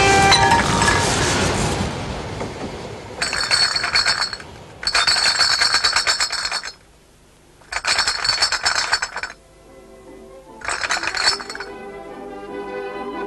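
Glass bottles clinking and rattling against each other in four bursts of rapid clinking, each a second or so long, with short pauses between.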